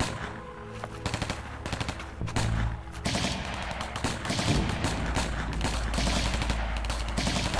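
Automatic rifle fire in a firefight: scattered shots at first, becoming dense, continuous bursts of gunfire from about three seconds in.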